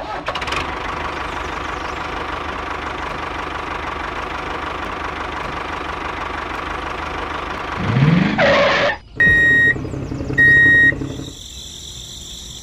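DIY mini tractor's engine running steadily, rising briefly in pitch about eight seconds in, followed by two short high-pitched beeps about a second apart.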